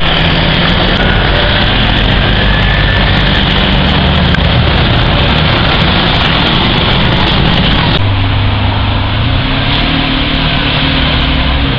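Ferrari FF's V12 running as it pulls away through traffic. After an abrupt cut about eight seconds in, a Lamborghini Aventador's V12 idles with a steady low drone.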